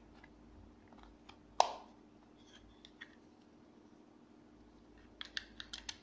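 Plastic TV remote control being handled and its battery cover slid open: one sharp click about a second and a half in, then a quick run of small plastic clicks near the end.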